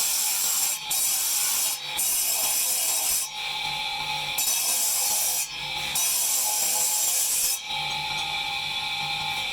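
Handheld electric grinder working marble: a steady grinding hiss over the motor's hum, broken by brief drops every second or two as the disc lifts off the stone.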